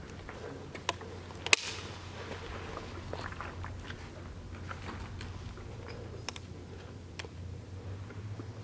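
Quiet footsteps with scattered light knocks and clicks, one sharp knock about a second and a half in, over a low steady hum.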